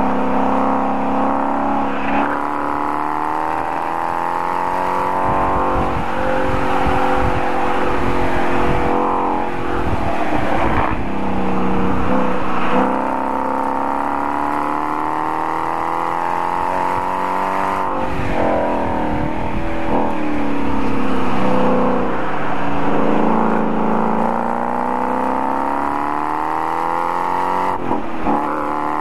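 A Ford Mustang's engine heard from inside the cabin while driven hard on a race track. Its note climbs and falls again and again, with several sudden drops in pitch.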